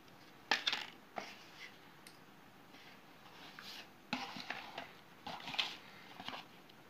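Cardboard smartphone retail box being handled and opened, with the inner tray being lifted out. It makes short scraping and tapping sounds: two near the start, then clusters from about four seconds in and again from just after five seconds in.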